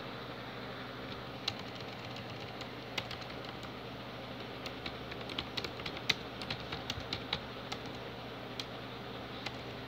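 Typing on a computer keyboard: a few scattered keystrokes, then a quick run of keystrokes about halfway through, then a few single taps near the end.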